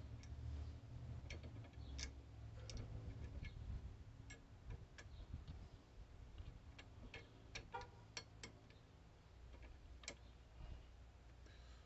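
Faint irregular clicks and light scraping of a turning tool against a cherry bowl blank on a wood lathe, over a low motor hum that weakens after about four seconds.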